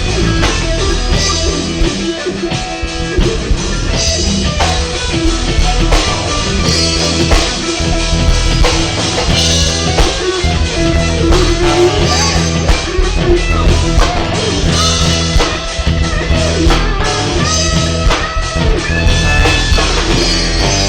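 Live rock band playing an instrumental passage: a drum kit with kick drum keeping a steady beat under guitar and bass.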